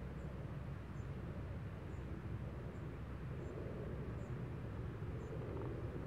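Outdoor field ambience: a steady low rumble with faint, short, high chirps about once a second.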